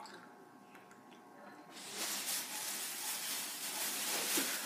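Clear plastic bag rustling and crinkling as it is handled, starting about two seconds in after a near-quiet moment.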